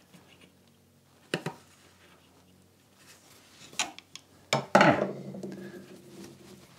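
Metal clinks and knocks as a screwdriver works against the Honda CX500's final drive housing and engine case. There are two light clicks, then a louder double clank near five seconds in that rings on briefly.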